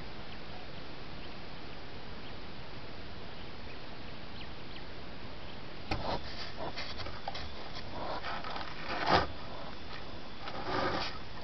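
Steady hiss from a trail camera's microphone with faint bird chirps. About six seconds in, an animal right up against the camera begins making noisy sniffs and scrapes, loudest about nine seconds in.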